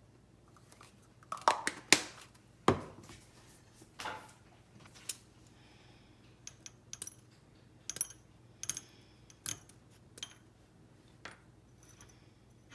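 A few loud knocks and clatters about a second and a half in, then scissors snipping brewer's yeast tablets, the cut pieces clicking and ringing as they drop into small ceramic bowls.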